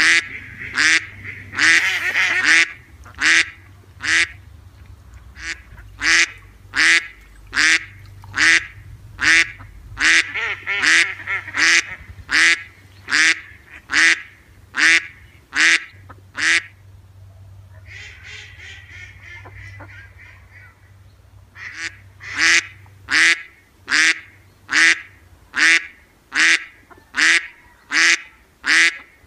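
Duck quacking in a steady, repeated series of loud quacks, about two a second. About two-thirds of the way through, the quacks give way for a few seconds to softer, busier calling, then the steady quacking resumes.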